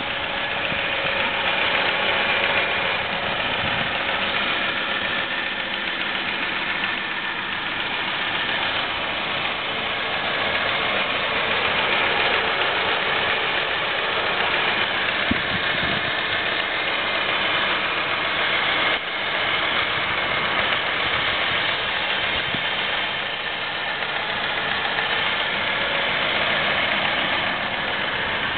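2002 Saturn SL2's 1.9-litre DOHC four-cylinder engine idling steadily, heard up close in the open engine bay.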